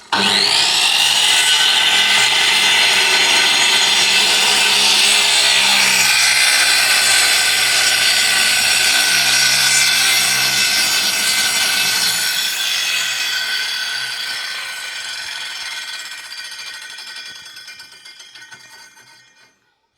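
Boda circular saw starting abruptly at full speed and running loud and steady with a high whine. From about halfway through it dies away gradually until it stops just before the end.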